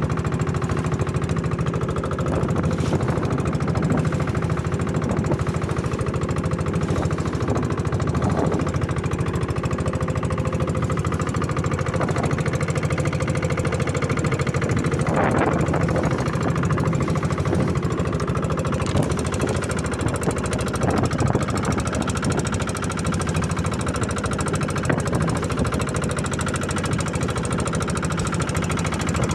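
Fishing boat's engine running steadily at an even pitch, with an unbroken throb.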